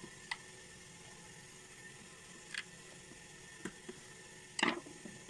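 A few short clicks and taps of small parts being handled while a plastic radio-controlled toy car is taken apart, with a louder clatter about four and a half seconds in, over a faint steady hiss.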